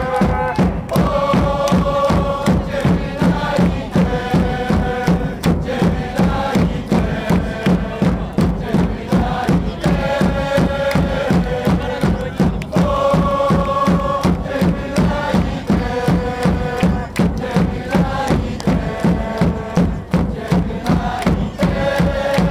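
Football supporters chanting together in unison to a steady drum beat.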